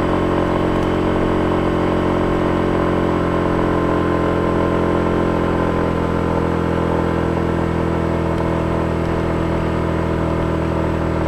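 Small motor scooter's engine running steadily under load while climbing a steep hill slowly.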